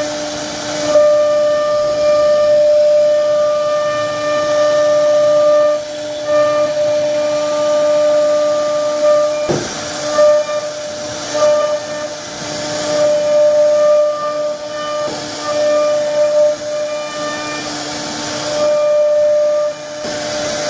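CNC router spindle whining steadily as its bit cuts a relief pattern into a wooden board, over a hiss of cutting. The whine swells and fades every few seconds as the tool moves through the cut.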